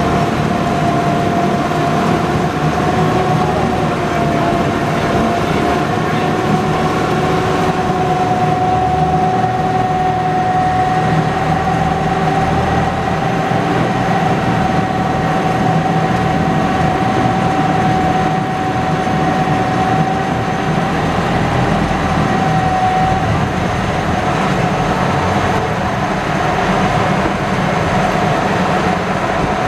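The gasoline engine of a WWII-era DUKW amphibious "duck" running steadily under way, loud and close, with a steady whine over it that stops a little after twenty seconds in.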